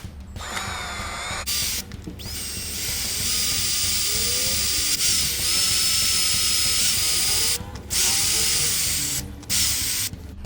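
Power drill with a 3/16 inch bit pre-drilling pilot holes through the metal back rail of an RV window blind. It runs in several bursts with pauses between them, the longest about five seconds.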